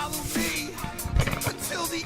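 Electronic music track with a steady beat of low drum hits and short pitch-bending vocal phrases.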